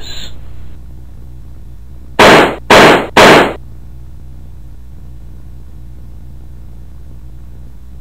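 Three loud, distorted blasts in quick succession about two seconds in, each about half a second long, over a steady low hum.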